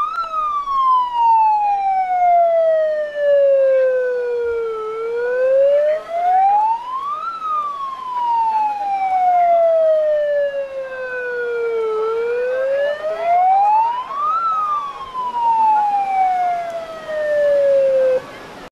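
Handheld megaphone's built-in siren wailing in a slow cycle: the pitch climbs for about two seconds, then sinks for about four, three times over. It cuts off shortly before the end.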